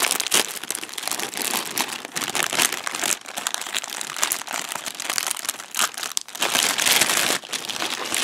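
A clear plastic bag crinkling as hands pull a red plastic model-kit runner out of it.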